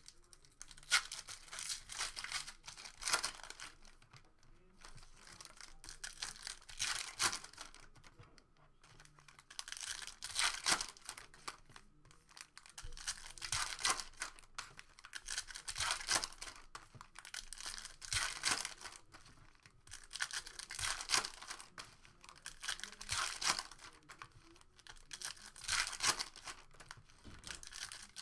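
Foil trading-card pack wrappers being torn open and crinkled by hand, in short crackling bursts every two to three seconds.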